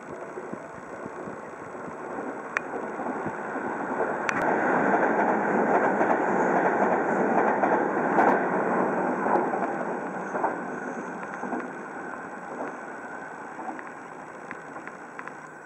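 Tobu 100 series Spacia electric train passing beneath, the rush of its wheels on the rails building, loudest about halfway through, then fading as it draws away. A few sharp clicks sound along the way.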